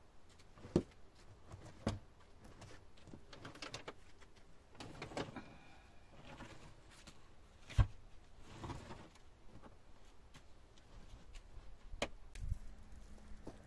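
Loose rocks knocking together and scraping on dirt as they are moved and set in place by gloved hands, with a few sharp knocks, the loudest about eight seconds in, and stretches of grinding and rustling between them.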